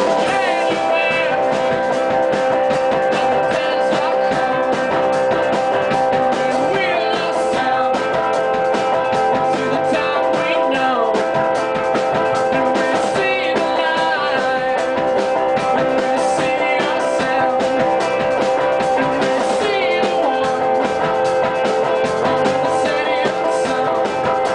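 Rock band playing live: guitar lines bending over a steady held chord, with no pauses.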